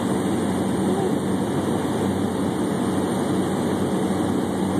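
Steady drone of a light aircraft's engine heard from inside the cabin, with a constant low hum.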